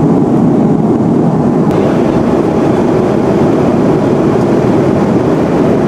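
Jet airliner cabin noise in flight: a loud, steady drone of engines and rushing air, unchanging throughout.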